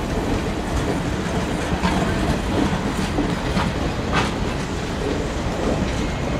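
Passenger cars of a circus train rolling past at speed: steady rumble of steel wheels on rail with a clickety-clack over the rail joints, and a few brief sharp metallic clicks or squeaks about two, three and a half and four seconds in.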